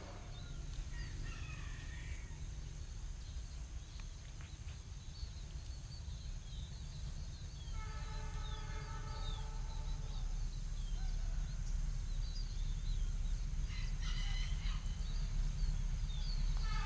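Diesel locomotive approaching, its engine rumble growing steadily louder, with a long horn blast about eight seconds in and a shorter one near the end: the semboyan 35 horn signal sounded as a warning for the level crossings. Birds chirp in the background.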